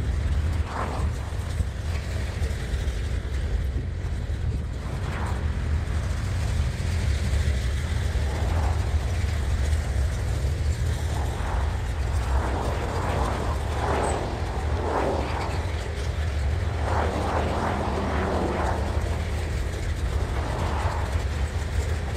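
Freight cars of a mixed manifest train rolling past: a steady low rumble of steel wheels on rail, with irregular clattering that grows louder in the second half.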